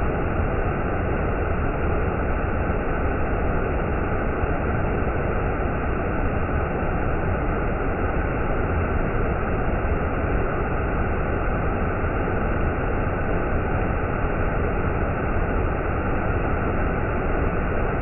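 Shequaga Falls pouring down a stepped shale slope: a steady, unbroken rush of water, heavy in the low end.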